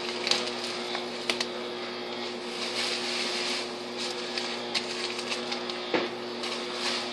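Paper drink-mix packets being shuffled and handled on a countertop: a light rustle with scattered ticks and taps. A steady low hum runs underneath.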